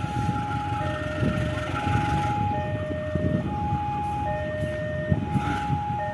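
Railway level-crossing warning alarm sounding its two-tone chime, alternating high and low tones each held a little under a second. Under it is the low rumble of a CC 203 (GE U20C) diesel-electric locomotive running light at slow speed.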